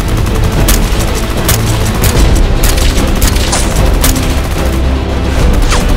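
Action music with rapid gunfire sound effects and heavy booms laid over it.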